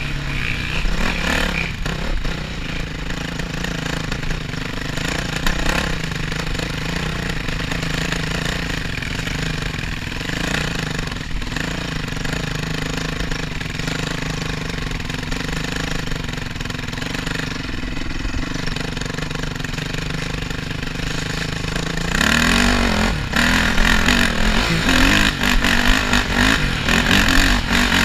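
Dirt bike engine heard from the rider's helmet while riding a trail, running at a steady throttle, then opened up and louder from about 22 seconds in.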